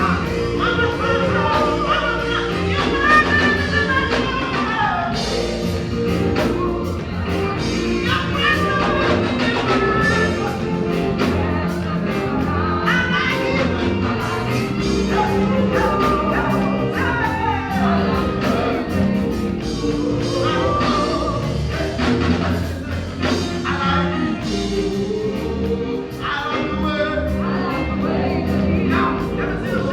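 Gospel music with singing over a band: a sung melody over steady bass and chords, with a regular drum beat.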